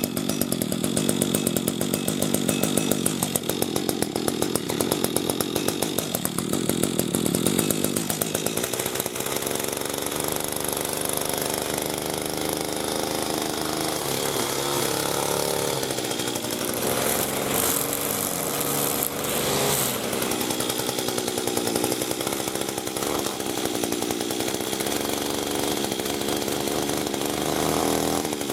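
Petrol whipper snipper (string trimmer) engine running continuously after its trigger was replaced. It pulses unevenly for the first eight seconds or so, then settles into a steadier note.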